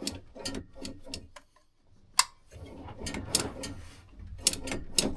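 A string of light clicks and knocks, with one sharp click about two seconds in, then denser clattering as objects are handled and moved about.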